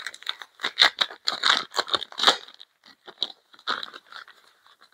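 Packaging crinkling and crackling as the supplied Ethernet cable is unwrapped by hand: a run of irregular crackles that thins out near the end.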